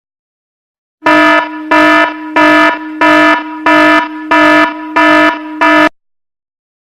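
Electronic alarm buzzer sound effect: a low, buzzy tone pulsing about seven times at an even pace, roughly one and a half pulses a second, then cutting off.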